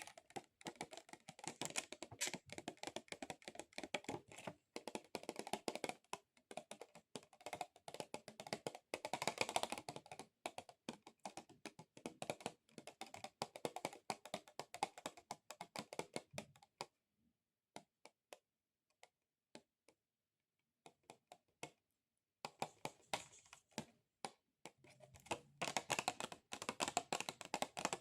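Long XXL fingernails tapping rapidly on plastic, a dense run of quick clicks. Past the middle it almost stops for about five seconds, with only a few stray taps, then picks up again.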